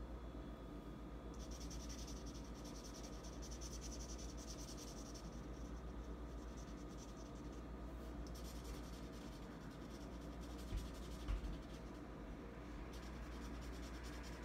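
A blue felt-tip marker rubbing rapidly back and forth on paper, colouring in, in scratchy stretches with short pauses. Two soft knocks come about eleven seconds in.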